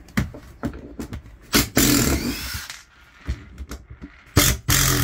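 Cordless drill-driver running in short bursts while backing screws out of hardboard floor panels, with knocks and clicks between the bursts. The two longest runs start about a second and a half in and about four and a half seconds in.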